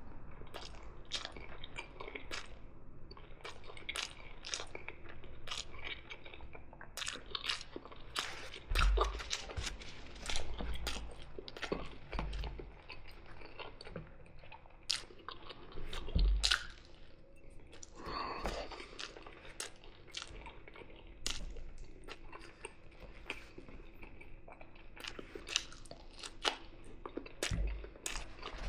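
Close-up eating sounds: a person chewing mici, fried eggs and fries, with many wet mouth clicks and crunches. There are a few dull low thumps along the way.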